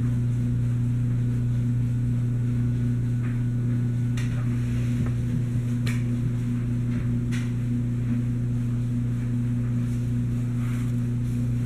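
A steady low hum runs unchanged throughout. A few faint soft clicks and rustles from the album's plastic page protectors being handled come through it.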